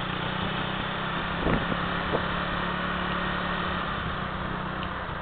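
Motorcycle engine running steadily while riding, with wind and road noise, and two short knocks about a second and a half and two seconds in.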